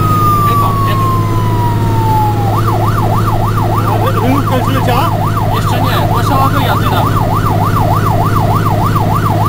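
Fire engine's electronic siren heard from inside the cab: a slow wail falling in pitch, switching about two and a half seconds in to a fast yelp of about three rises and falls a second, over the steady low drone of the truck's engine and road noise.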